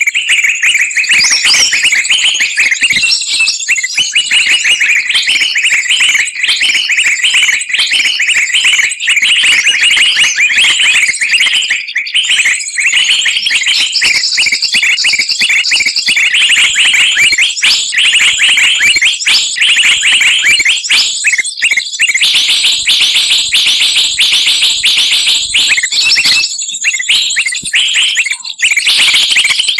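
Dense, noisy chorus of many small songbirds chirping, trilling and chattering over one another without a break, a mixed bird-lure recording made to draw wild birds down.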